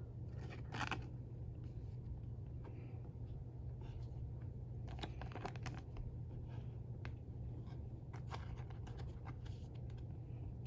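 Scattered soft rustles and light clicks of trading cards being slid into plastic penny sleeves, over a steady low hum.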